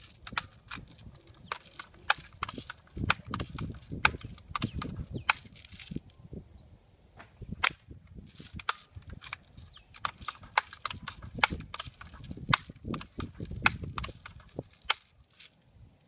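A pump BB gun being handled: an irregular run of sharp clicks and snaps, one to three a second, over low rumbling handling noise.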